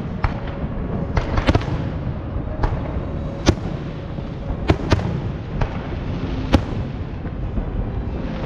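Fireworks display: shells bursting with sharp bangs at irregular intervals, about a dozen in all, over a continuous low rumble of further explosions.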